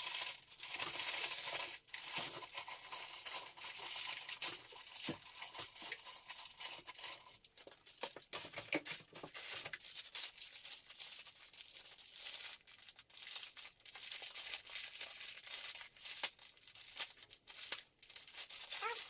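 Dry cereal being poured from a crinkly plastic bag into a plastic cereal dispenser: a steady crackling rustle of bag and flakes, dense with small clicks.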